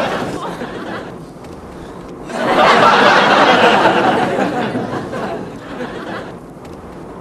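Loud, exaggerated comic wailing from one voice. The tail of one bout fades at the start, and a second long bout begins about two seconds in and trails off.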